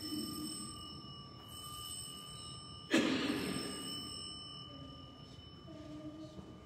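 An altar bell rung at the elevation during the consecration at Mass: a light strike at the start and a much louder one about three seconds in, each ringing on and slowly fading.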